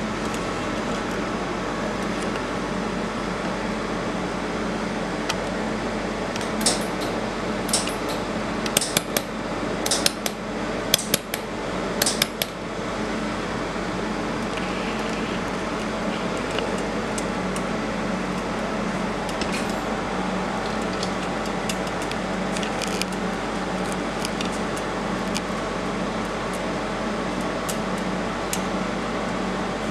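Steady hum of a laser welding machine's cooling fan. About seven to twelve seconds in comes a run of about ten sharp metallic clicks and clinks.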